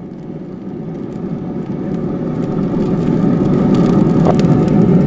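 Distant engine rumble growing steadily louder through the whole stretch, a low steady drone with faint tones in it: an aircraft or vehicle approaching.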